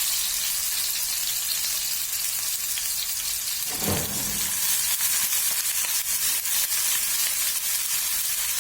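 Chopped ginger, garlic and chilli sizzling in hot oil in a pan: a steady high hiss with small crackles, and one brief lower sound about four seconds in.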